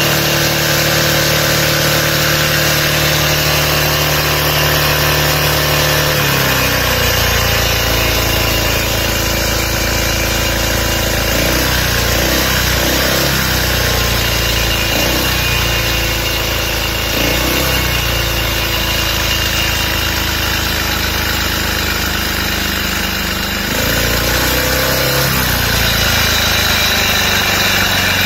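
Small 50cc four-stroke single-cylinder engine running on hydrogen gas. Its speed drops about six seconds in, then rises and falls briefly several times.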